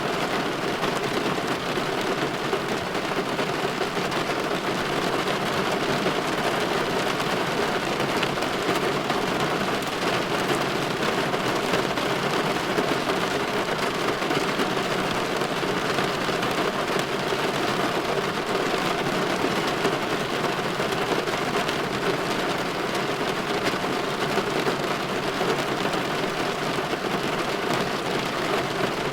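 Steady rain pattering on a window pane, an even hiss of drops with no pauses or distinct events.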